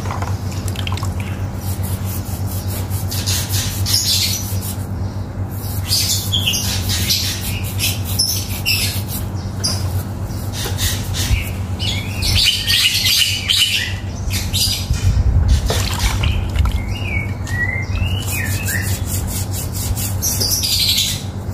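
Short rasping scrubbing strokes of a piece of fruit skin rubbed over an adenium's bark, with birds chirping and squawking and a steady low hum underneath.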